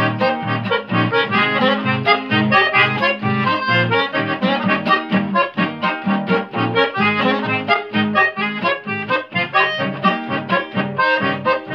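Instrumental accordion music: a quick melody of short notes over a pulsing bass.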